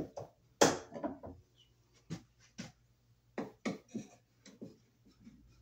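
Small clicks and taps of a screwdriver and wire against a metal electrical box as a bare copper ground wire is fastened under the green bonding screw, with a sharper knock just under a second in.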